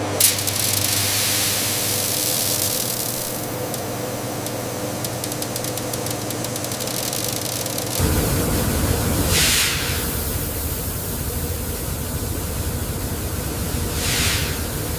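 Factory machinery running with a steady hiss of air over a low hum. About halfway through a heavier rumble comes in, and two short whooshes of air follow.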